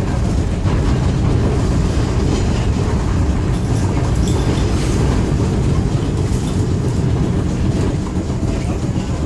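Vintage tram car running along the track, heard from inside its wooden passenger compartment: a steady low rumble of the running gear and wheels on the rails, with a few light clicks.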